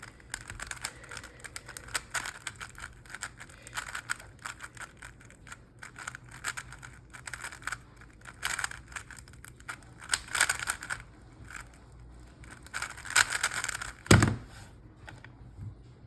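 New-batch DaYan Tengyun 3x3 speed cube, lightly lubed, being turned fast during a solve: quick runs of soft plastic clicking and clacking as the layers turn, in bunches with short pauses, and a single thud near the end.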